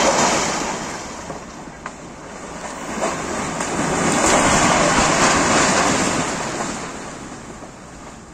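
Boiler-house smokestack brought down by an explosive charge: the blast's noise dies away, then a long rumble swells about four to six seconds in as the stack falls and hits the ground, and fades near the end.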